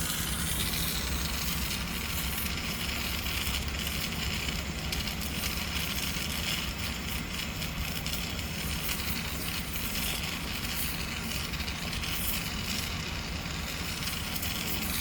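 Electric arc welding on galvanized steel: a steady crackling, hissing arc that keeps going without a break, over a low hum.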